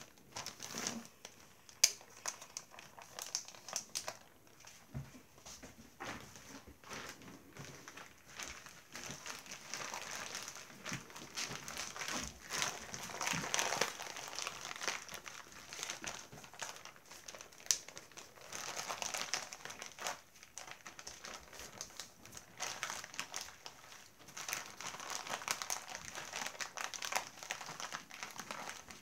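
Gallon zip-top plastic bag crinkling and crackling as the flour, yeast and water dough inside is squeezed and kneaded by hand, coming in uneven swells, with one sharp click about two seconds in.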